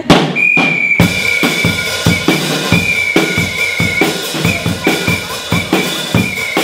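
Live band music: a high whistle holding one shrill, slightly wavering note with short breaks, over a quick, steady drum beat that comes in about a second in.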